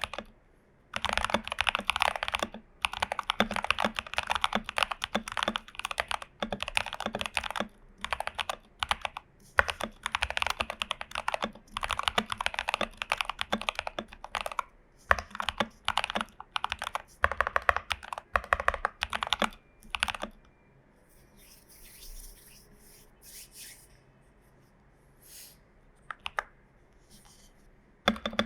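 Typing on a Glorious GMMK Pro mechanical keyboard with tape mod, lubed and filmed Prevail Epsilon switches and PBT dye-sub keycaps: fast runs of keystrokes in bursts with short pauses. About two-thirds of the way in the typing stops and only a few quieter single key presses follow.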